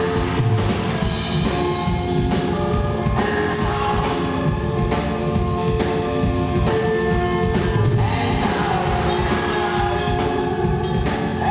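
A band playing live and loud: drum kit and cymbals over held, amplified chords.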